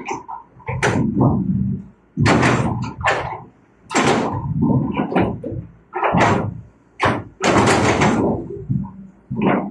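Hitachi hydraulic excavator's steel bucket scraping and crunching through rocky soil, in a series of irregular grinding, clattering bursts.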